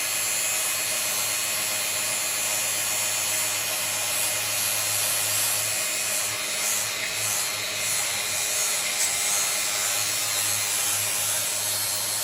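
Angle grinder fitted with an abrasive pad running steadily, grinding the cutting edge of a steel lawn mower blade.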